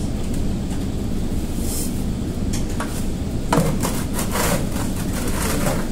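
Handling noise from the bridge-test setup: a few light knocks and rubbing sounds, the strongest about three and a half seconds in, over a steady low room hum.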